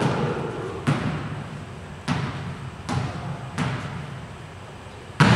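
A volleyball smacking against hands and the gym floor in a large echoing hall: five sharp hits about a second apart, the last, near the end, the loudest.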